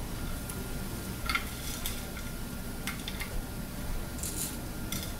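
Mustard seeds heating in a teaspoon of oil in a ceramic-coated frying pan, sizzling faintly with a few scattered small crackles. The seeds have not yet begun to splutter; this is the early stage of a tempering (tadka).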